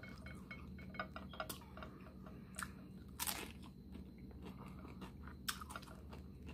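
Close-miked chewing of crunchy hard-shell corn tacos: faint, scattered crunches with a longer crackling crunch about three seconds in.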